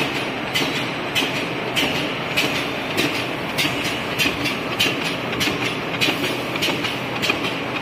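High-speed flat-to-flat label die-cutting machine running: the flatbed die press clacks in a steady rhythm, a little under twice a second, over a continuous mechanical running noise.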